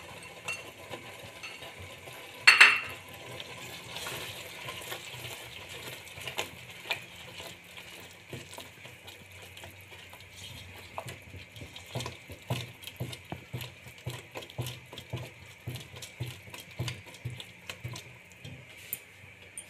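A spatula stirring a thick gram-flour and spinach masala in a metal pot, scraping and tapping against the pot over a steady hiss from the pan. There is one loud clank about two and a half seconds in, and quick, frequent stirring taps from about halfway on.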